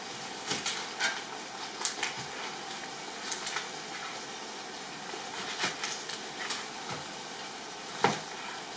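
Chicken tikka frying in a pan with a steady sizzle. Scattered clinks and knocks of a ladle and dishes sound over it, with a louder knock near the end.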